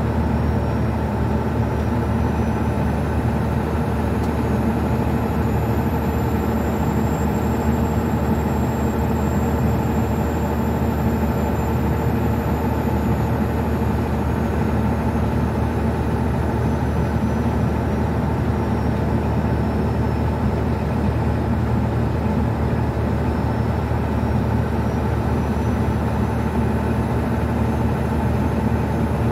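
Old International semi truck's diesel engine running steadily while driving at highway speed, heard from inside the cab as a dense, even drone with road noise.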